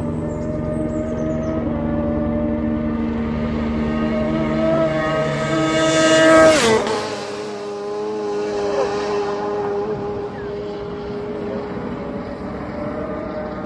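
A racing sidecar outfit's 600cc four-stroke engine at high revs, growing louder as it approaches at speed and passing about six and a half seconds in with a sharp drop in pitch. It then fades away down the road as a quieter, steady engine note.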